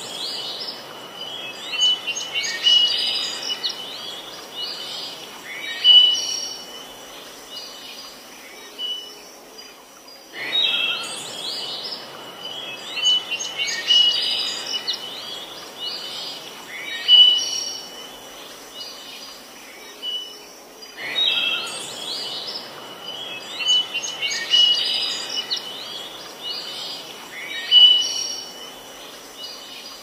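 Many birds chirping and calling over a steady background hiss. The same stretch of birdsong repeats about every eleven seconds, with a brief drop in the hiss at each restart.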